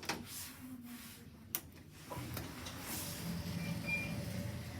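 Kone / Marryat & Scott passenger lift getting under way: a sharp click about a second and a half in, then a low hum of the lift machinery building as the car starts to move.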